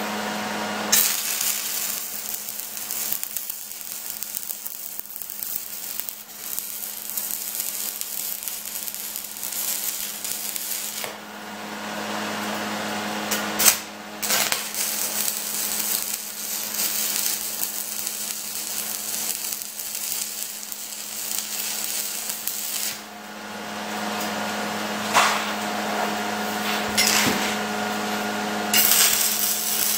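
Stick (arc) welding with 3/32 electrodes on an ESAB 215ic: the arc crackles and hisses in three long runs with short breaks between them, over a steady hum. A couple of sharp knocks come during the breaks.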